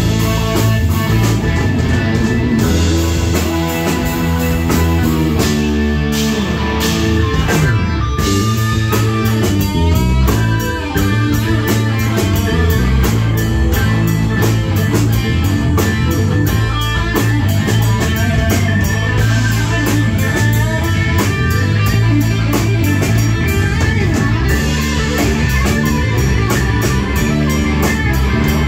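Rock band playing live: electric guitar over a drum kit, with a steady beat.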